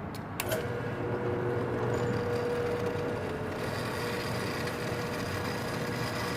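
Drill press switched on with a couple of sharp clicks, then its motor running with a steady whine while the bit drills a pin hole through the wooden knife handle.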